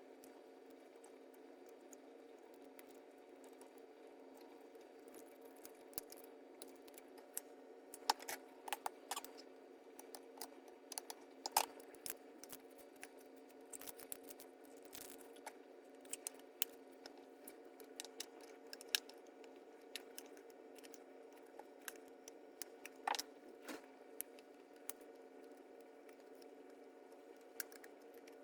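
Scattered light clicks and taps of small plastic parts and screws being handled while a new LCD screen is fitted into the Honda Civic i-MID display housing, over a steady faint hum. The clicks come in loose clusters, busiest through the middle.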